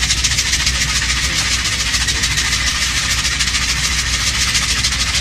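Steady airliner cabin noise: a constant loud hiss of rushing air over a low engine hum.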